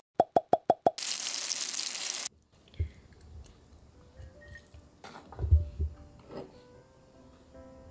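Five quick pitched pop sound effects in the first second, then the hiss of a pot of ramen simmering, which cuts off about two seconds in. After that come soft low bumps and clicks of chopsticks and a ladle serving the noodles, with faint background music near the end.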